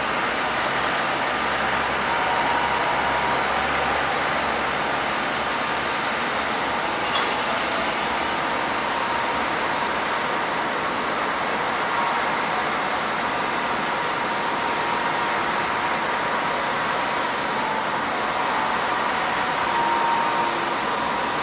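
Airliner jet engines running steadily: a broad rushing noise with a faint steady whine, and one short tick about seven seconds in.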